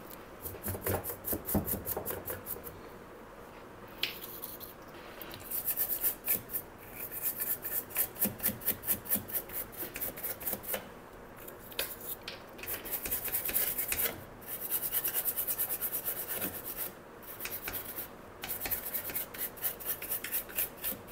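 Scrubbing on a printed circuit board with a small brush. It comes in several runs of quick back-and-forth rasping strokes, about four a second, with short pauses between. The brush is cleaning the freshly desoldered IPM holes and pads.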